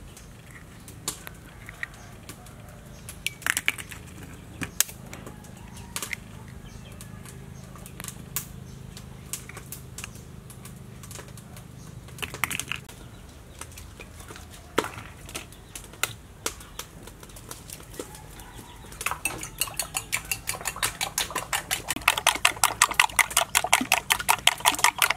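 A metal spoon clinking and scraping now and then against ceramic bowls while duck egg yolks are spooned out. From about two-thirds of the way in, quick even taps, about five a second and growing louder, as the spoon beats the yolks in a porcelain bowl.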